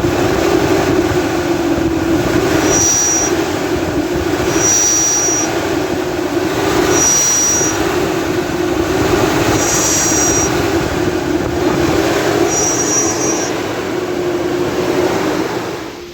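Nissan Patrol Y62 engine revved up and down again and again, with a short high whistle at the top of each rev, five times. The whistle is the car's fault, which the mechanic suspects comes from the engine's fan clutch (fan coupling).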